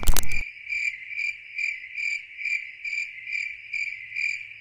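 A short loud burst right at the start, then a cricket chirping steadily at one pitch, about two chirps a second, with nothing else behind it.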